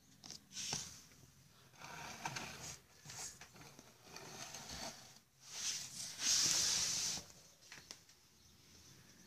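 Irregular rustling and scraping handling noise, with no steady rhythm. The loudest part is a hissing rush about six to seven seconds in.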